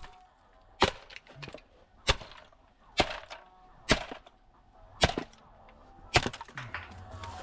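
Six sharp blows struck about a second apart on a small scrap electric motor, trying to knock it off its cast aluminum bracket.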